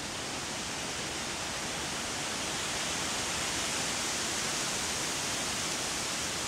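Steady rushing noise with no distinct calls or knocks, slowly growing a little louder.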